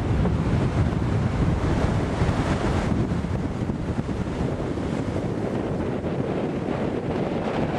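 Strong wind buffeting the microphone in gusts, over the steady wash of surf breaking on a sandy beach.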